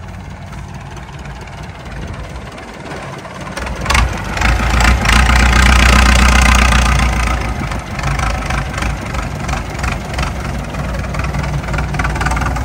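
Massey Ferguson 185 tractor's four-cylinder Perkins diesel running, with a sharp knock about four seconds in as it revs up and grows loud, then settling back to a steady, somewhat lower run.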